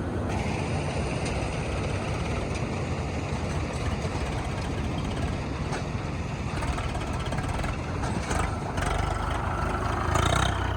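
Malkit combine harvester running with a steady engine drone, growing louder near the end.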